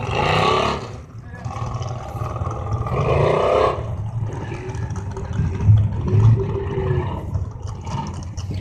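Off-road trucks and Jeeps running in a mud pit, their engines revving up in two bursts, near the start and about three seconds in, over a steady low rumble.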